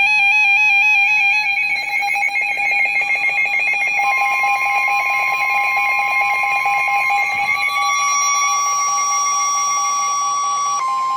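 Weather radio alert tones: a warbling electronic alarm, joined about four seconds in by a steady single-pitch tone, the NOAA Weather Radio warning alarm that signals a warning is about to be read.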